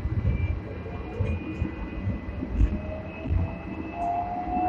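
Seventh-generation Hong Kong tram No. 106 running, heard from the lower deck behind the driver: a low rumble with irregular knocks from the wheels on the track, and a faint electric motor whine that slowly rises in pitch as the tram gathers speed.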